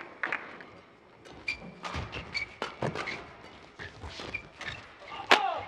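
Badminton rally: sharp hits of rackets on a feather shuttlecock at irregular intervals, with short squeaks of rubber-soled court shoes on the court mat and one loud squeak near the end.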